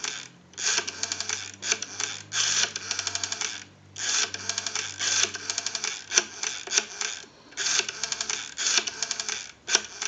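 Rotary dial of an AT&T WE 337 candlestick telephone dialling a number: the dial is turned and let go again and again, and each return rattles off a run of even clicks, about ten a second, one run for each digit.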